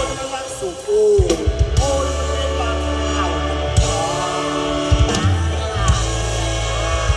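Live mor lam band music: a melodic line bending up and down in pitch, with drum kit and bass coming in about a second in and carrying a steady beat.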